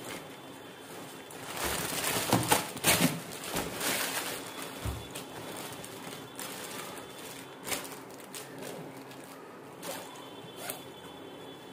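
Plastic bag crinkling and rustling as a bagged lunch box is pushed into a nylon backpack, with the loudest handling noises about two to three seconds in. Quieter rustles of the bag fabric follow.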